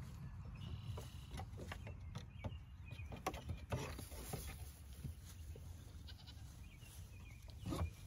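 Nigerian Dwarf goat kids moving about on wooden cable-spool tops: scattered light hoof taps and knocks over a low steady rumble.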